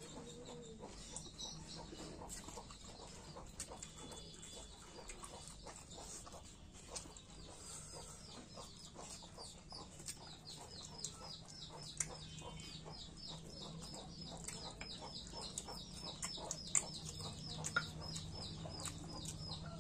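Close-up mouth sounds of a person eating: chewing, smacking and small clicks. From about seven seconds in, a small bird chirps over and over in the background, about three short chirps a second.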